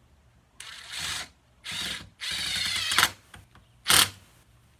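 Cordless power driver driving a screw into wood in several short runs of the motor with a whine, the longest nearly a second, then one brief loud burst near the end.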